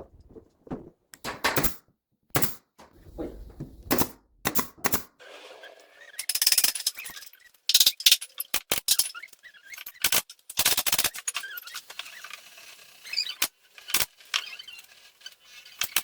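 Irregular knocks, taps and clatter of hand work with wood and tools, with no machine running.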